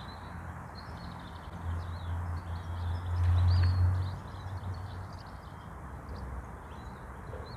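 Outdoor riverbank ambience: small birds chirping faintly, with a low rumble that swells and fades again about two to four seconds in.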